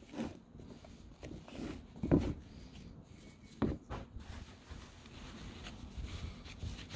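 Handling noises from a brake caliper being cleaned and wiped down: a few short knocks, the loudest about 2 s and about 3.5 s in, with faint rubbing in between.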